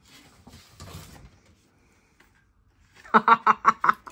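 Wrapping paper rustling as a present is unwrapped, then about three seconds in a short, loud burst of laughter: quick 'ha-ha-ha' pulses lasting about a second.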